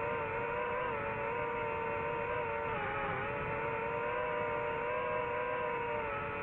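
DJI FPV drone's motors and propellers whining steadily in flight, the pitch wavering slightly and dipping briefly about three seconds in.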